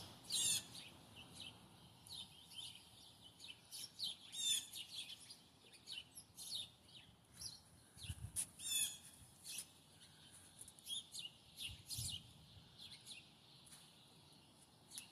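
Several songbirds chirping and calling outdoors, with repeated quick trills and short chirps scattered throughout. A couple of brief low thumps come about eight and twelve seconds in.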